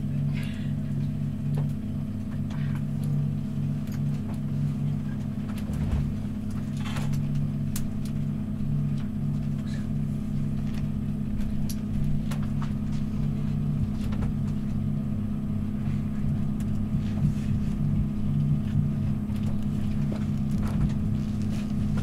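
Inside a passenger train carriage: a steady low hum from the train's running gear, with a pulsing drone underneath and a few faint clicks scattered through.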